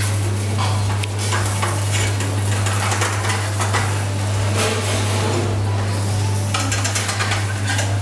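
Kitchen clatter: metal utensils scraping, stirring and knocking against pots and dishes in quick irregular strokes, over a steady low hum.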